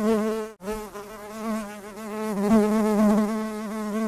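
Bee buzzing: a steady, slightly wavering buzz that cuts out briefly about half a second in, then carries on.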